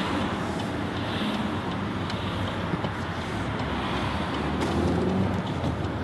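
Opel Cascada convertible driving with the roof open and windows down: a steady rush of wind and road noise, with the low hum of its 1.6-litre petrol engine underneath.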